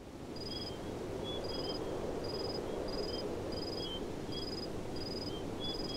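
Outdoor ambience: a steady low rushing background with small birds chirping, one repeating a short high note about every three-quarters of a second.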